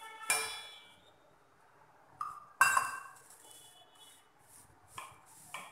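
Kitchenware clinking against a stainless steel mixing bowl while flour dough is mixed by hand in it. There are two sharp clinks that ring on briefly, about a third of a second in and about two and a half seconds in, and a few lighter taps near the end.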